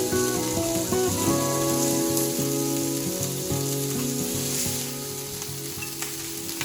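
Meatballs sizzling as they fry in oil in a pan, over background music with a stepping melody.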